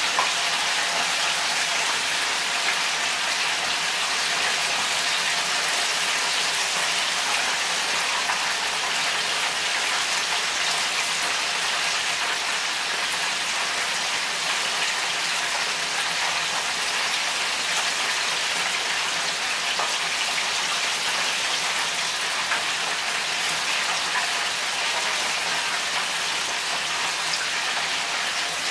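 Battered chicken pieces deep-frying in hot oil: a steady sizzle with fine crackles throughout.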